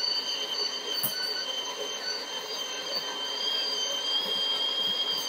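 De'Longhi La Specialista Prestigio's built-in burr grinder running, grinding beans straight into the locked-in portafilter: a steady high whine over a grinding hiss. The machine's noise is partly muffled by the microphone's noise cancelling.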